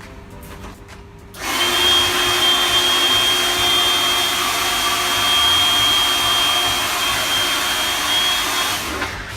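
Hairdryer switched on about a second and a half in, running steadily with a high whine over its rushing air as it blows into the float through a cut-off plastic bottle, then switched off just before the end.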